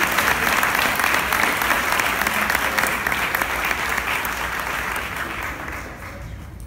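Audience applauding: dense clapping that tapers off over the last couple of seconds.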